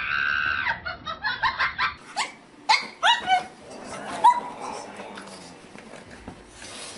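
Pug dog giving a few short yips and whines that fall sharply in pitch a couple of seconds in, with one more brief cry shortly after, while it paws at a cat.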